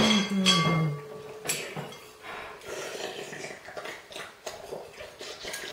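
A metal spoon clinks against a soup bowl, ringing briefly about half a second in, followed by softer scraping and eating noises as someone eats from the bowl.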